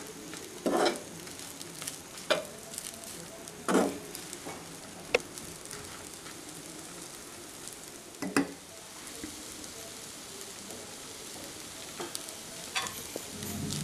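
Onion rice frying in a kadai with a steady sizzle, a perforated slotted spoon scraping and tossing it in a handful of separate strokes.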